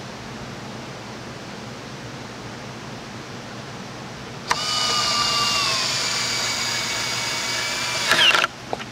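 Steady shop background hiss, then about halfway through a cordless drill/driver starts with a sudden high whine. Its pitch drops a little as it takes load, and it runs steadily for about four seconds. Near the end it briefly rises and cuts off, followed by a couple of short clicks.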